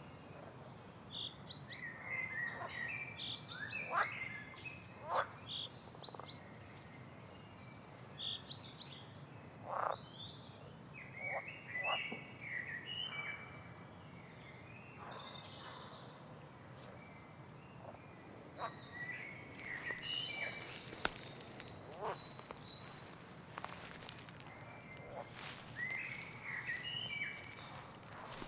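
Several wild birds calling and singing: short chirps and twitters repeating throughout, with a high, thin trill partway through. A few faint clicks come in the last third.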